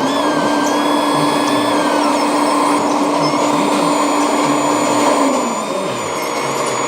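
Small electric motor and hydraulic pump of a radio-controlled model excavator whining steadily. A steady hum drops away about five seconds in, with higher whines gliding up and down over it.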